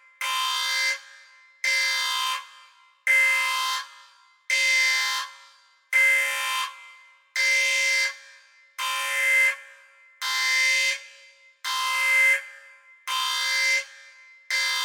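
Sci-fi spaceship alarm sound effect: a repeating electronic horn tone, about one blast every second and a half. Each blast starts suddenly, holds for about a second and trails off in an echo.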